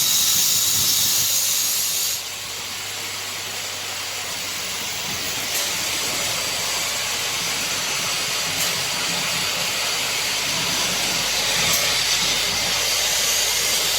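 Automated assembly machinery running with a steady compressed-air hiss. A louder burst of hiss cuts off about two seconds in, and faint clicks come about every three seconds.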